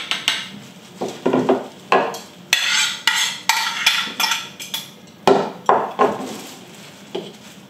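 Kitchen clatter: a run of sharp knocks of utensils against pots and dishes, with a stretch of rougher scraping in the middle.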